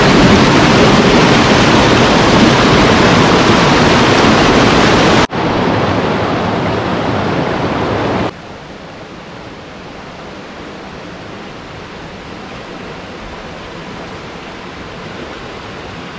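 Rushing water of a river cascading over rocks in a gorge. It is loud and close for the first five seconds, then cuts to quieter running water, which drops again to a softer, steady flow about eight seconds in.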